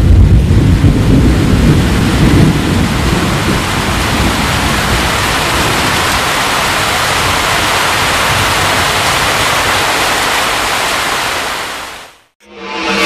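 Heavy rain with a deep rumble of thunder over the first couple of seconds, then steady rain that fades out near the end.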